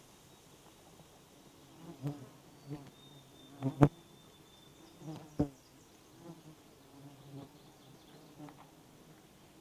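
Flying insects buzzing close by, the drone wavering up and down in loudness, with two sharp snaps about four and five and a half seconds in.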